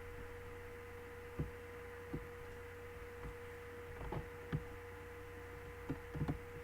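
Steady low electrical hum with a faint constant tone above it, and a few soft, short clicks scattered through it.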